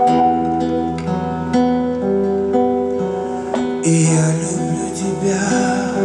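Live acoustic guitar and piano playing a slow ballad's instrumental passage between sung lines, with a hissing wash of noise from about four seconds in.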